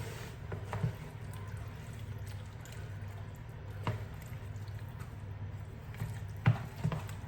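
A spoon spreading thick pasta-bake sauce over chicken and pasta in a dish, with wet squishing and a few light knocks of the spoon against the dish, the loudest near the end. A steady low hum runs underneath.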